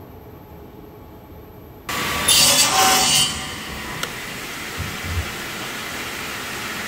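Quiet room tone, then about two seconds in a power mitre saw is heard. Its blade cuts through a wooden strip for about a second, loud and bright, and then keeps running steadily, with a couple of small clicks.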